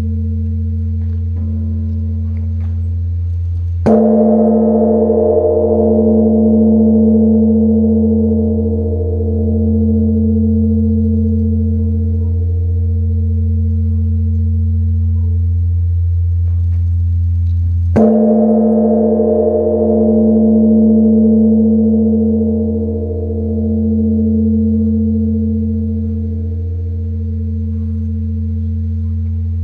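Large Korean bronze temple bell (beomjong) struck twice with a wooden log, about fourteen seconds apart. Each stroke is a sudden dull boom that rings on for a long time, with a deep hum and a slow wavering pulse. Ringing from the previous stroke is still dying away at the start.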